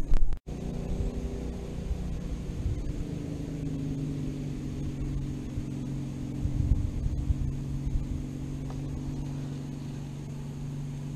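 A boat motor hums steadily at a low, even pitch. A brief loud knock sounds right at the start.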